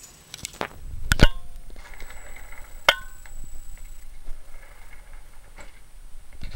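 A door being opened and shut: a double knock about a second in with a short metallic ring, and another sharp knock near the middle.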